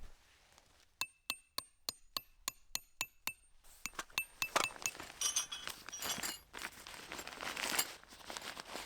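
A run of light metallic clinks, about four a second, each with a short high ring, followed by a denser clatter and rustle of gear being handled.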